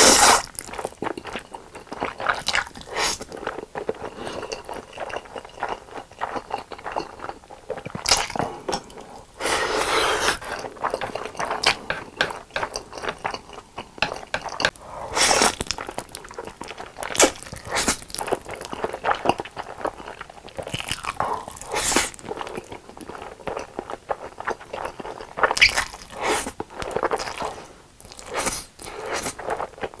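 Close-miked eating sounds: irregular bites and chewing of Samyang carbonara fire noodles, with a few longer noisy stretches of about a second each.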